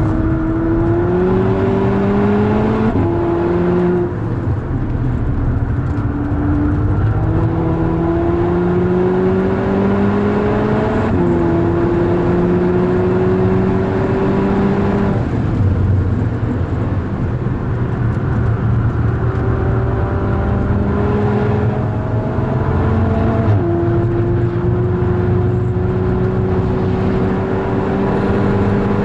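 VW Golf 6R's turbocharged four-cylinder engine pulling hard on track, its pitch climbing in each gear and dropping sharply at three upshifts, with a spell of lower, falling revs in the middle where it slows for a corner.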